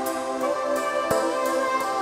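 Background music: sustained instrumental tones with drum hits.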